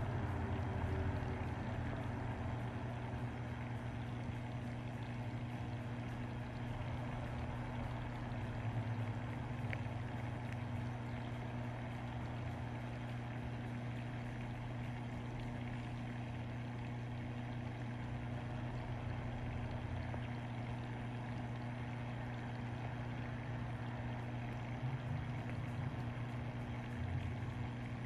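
Steady low hum of reef-aquarium pumps, with a constant wash of circulating water.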